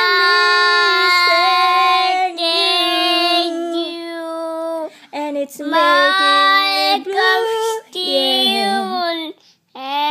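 A toddler singing without words: one long held note for about the first five seconds, then several shorter, wavering sung phrases, with a short break near the end.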